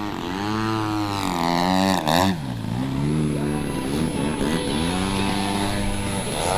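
Desert Aircraft DA-120 twin-cylinder two-stroke petrol engine of a giant-scale RC aerobatic plane in flight, its note rising and falling in pitch several times as it is throttled through manoeuvres, with a short sharp noise about two seconds in.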